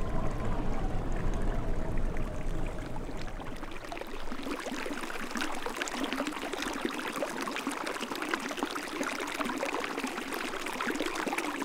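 Water running and trickling in a small mountain stream, a dense, even babble. A low rumble underneath dies away about four seconds in.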